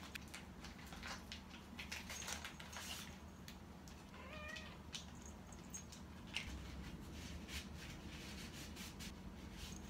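Domestic cat giving one short meow about four seconds in, amid scattered light clicks and knocks.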